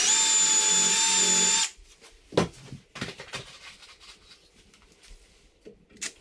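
Milwaukee cordless drill driving a wood screw into the chair's backrest: the motor spins up and runs at a steady whine for about a second and a half, then stops. About a second later comes a sharp knock, followed by light clicks and taps of handling.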